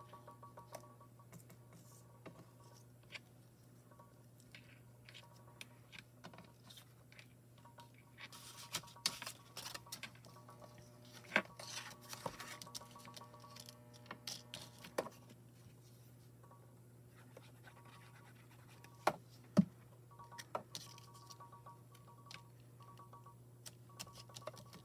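Handling of card stock and paper at a craft desk: scratching and rustling with irregular light taps and clicks, and two sharper clicks about three-quarters of the way through, over a steady low hum.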